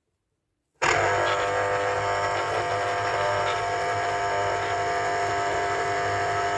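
Electric citrus juicer's motor starting suddenly a little under a second in and then running at a steady pitch as an orange half is pressed down onto its spinning reamer cone.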